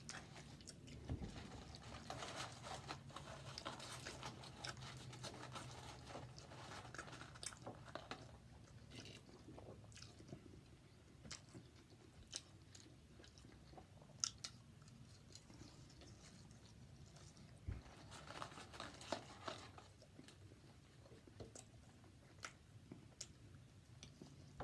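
Faint close-up chewing and mouth sounds of a person eating a McDonald's burger, with scattered small clicks.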